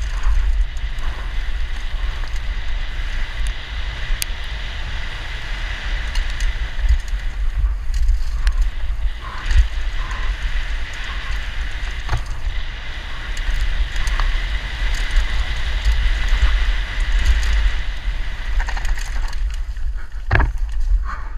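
Downhill mountain bike running fast down a loose gravel trail, heard from a helmet-mounted camera: heavy wind buffeting on the microphone over the tyres' rolling noise, with scattered clicks and rattles from stones and the bike. A louder knock comes near the end.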